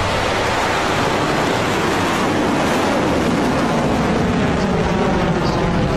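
Electron rocket's first stage, its nine Rutherford engines firing at full thrust seconds after liftoff: a loud, steady rushing noise.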